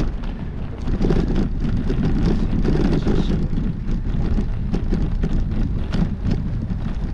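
Bicycle rolling over a gravel path: the tyres crunch, the bike rattles in quick irregular clicks, and wind buffets the microphone in a steady low rumble.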